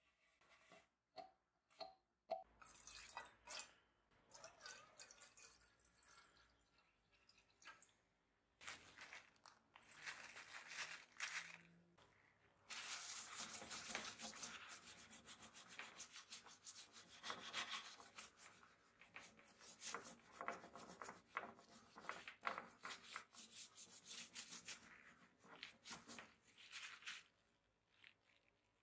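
Cloth rubbed over a carved wooden table frame by a gloved hand, wiping on a wet finish. Quiet, irregular rubbing and swishing strokes, busiest in the second half, after a few soft clicks at the start.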